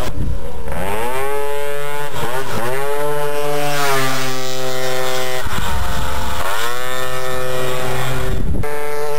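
Tuned two-stroke scooter engine revving hard. Its pitch climbs, breaks off and climbs again several times as it accelerates through the gears.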